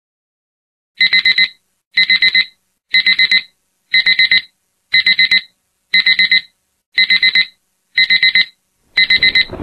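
Electronic alarm clock beeping: quick groups of four short, high beeps, one group every second, starting about a second in.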